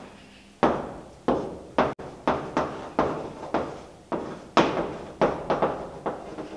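Chalk writing on a blackboard: a quick, uneven run of sharp taps and short scrapes as the letters of words are written, each fading within a fraction of a second.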